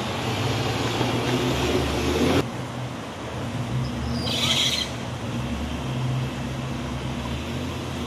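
Off-road 4x4 vehicle engine running steadily. The sound changes abruptly about two and a half seconds in, and a short hiss comes about halfway through.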